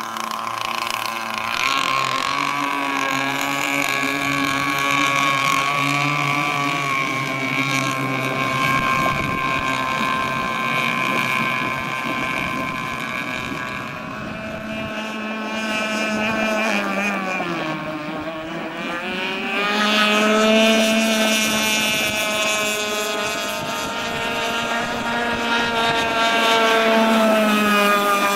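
Pro Boat Shockwave 55 radio-controlled model speedboat running on the water, its engine holding a high steady note. The engine note drops about two-thirds of the way through as the throttle eases, then climbs back up and holds.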